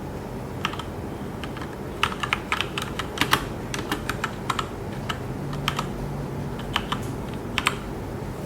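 Typing on a Keychron K2 aluminium mechanical keyboard with red linear switches: irregular keystrokes, with a quick run of keys from about two seconds in to about five seconds, then scattered single presses, over a low steady hum.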